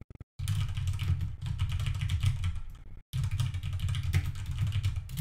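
Fast typing on a computer keyboard: a dense, continuous clatter of keystrokes in two runs, with a brief break about three seconds in.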